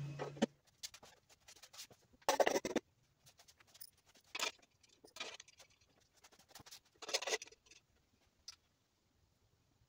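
Hand work on small electrical connectors: scattered light clicks and scrapes, with two louder half-second rasping scrapes, about two and a half and seven seconds in.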